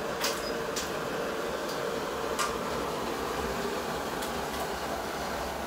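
Lit gas burners on a commercial gas range and barbecue grill, burning with a steady noise under test, with a few light clicks.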